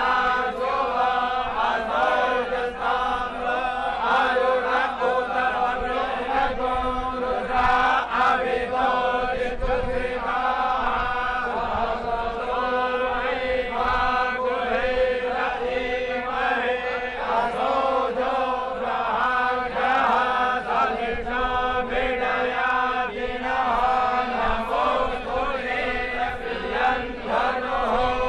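Priests' voices chanting Hindu puja mantras, continuous and even, over a steady held tone.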